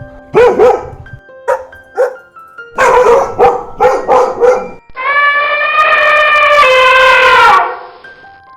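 A dog barking in a run of short barks, a few at a time. About five seconds in, a long drawn-out call follows and drops in pitch near its end.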